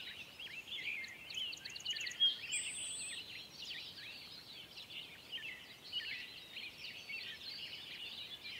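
Outdoor birdsong: many birds chirping and calling at once, a dense chatter of short, quick chirps, with one louder chirp a little after two seconds in and a high, thin trill soon after.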